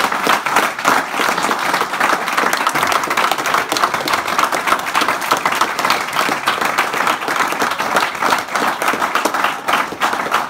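A roomful of people applauding, a dense, steady clatter of many hands clapping.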